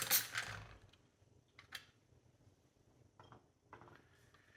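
Small metal CPU cooler mounting parts clicking as they are handled and screwed in: a quick run of sharp clicks at the start, then a few faint, scattered ticks.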